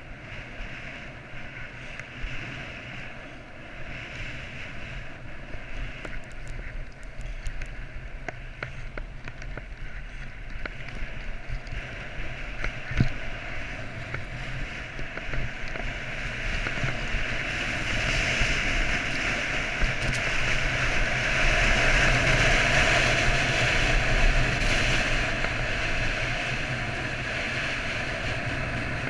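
Skis running through powder snow with wind rushing over the microphone: a steady rushing hiss that grows louder past the middle, then eases slightly near the end.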